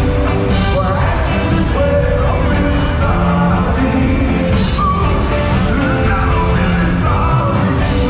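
Live vocal group singing into microphones over a full band with keyboards, drums and saxophones, heard loud from within the audience.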